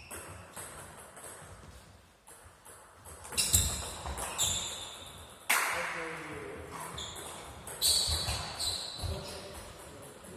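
Table tennis ball clicks and bounces and short voices, echoing in a large sports hall, with several sudden loud sounds that ring on.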